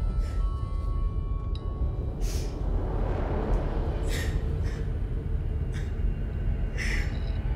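A woman crying with sharp, gasping breaths every second or two, over a low, steady droning horror score.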